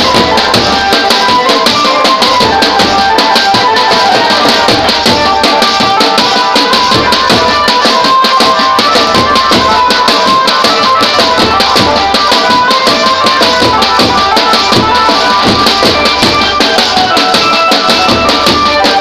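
Banjo party band playing loud music: a melody in quick notes over fast, continuous drumming.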